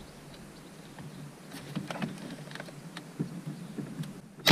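Small plastic ticks and clicks as needle-nose pliers work a plastic retaining clip loose on the back of a Renault Clio's instrument cluster, with one sharp click near the end.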